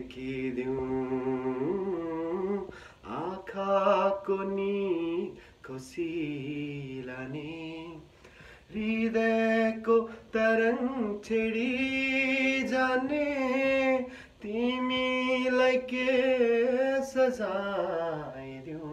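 A man singing a Nepali song unaccompanied, holding long notes that step up and down, in phrases of a few seconds with short breaths between.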